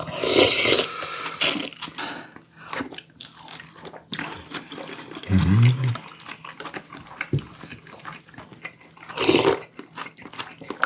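Close-miked eating sounds: chewing and biting food, with many short clicks and two brief louder bursts, one at the start and one near the end. About halfway there is a short low vocal hum.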